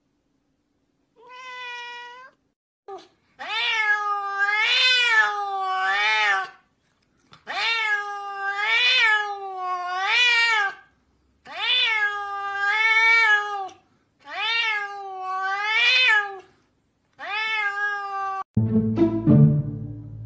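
Domestic cat meowing over and over, a string of long drawn-out meows that rise and fall in pitch. Background music comes in near the end.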